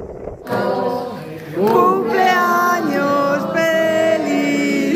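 Several voices singing together in a choir-like chorus, holding long notes, starting abruptly about half a second in after a brief stretch of vehicle and wind noise.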